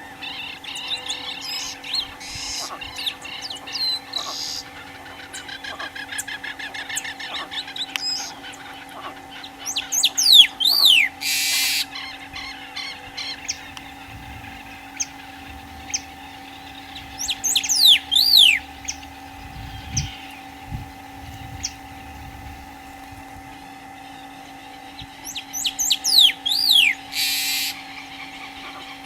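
Many-colored rush tyrant (pájaro siete colores) singing. Three phrases come about eight seconds apart, each a quick run of notes ending in a few sharp notes that sweep down in pitch. Fainter ticking calls come in between, over a steady low hum.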